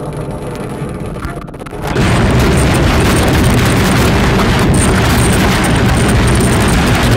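A lower drone with a few steady tones gives way suddenly, about two seconds in, to a loud, continuous wall of harsh distorted noise that holds steady.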